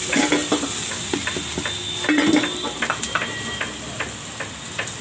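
Steel utensils clinking and knocking against a batter pot and a hot dosa griddle, with a ringing metal clank about two seconds in, over a steady hiss of steam and sizzle from the griddle. Near the end, a bowl scrapes as it spreads dosa batter in circles on the griddle.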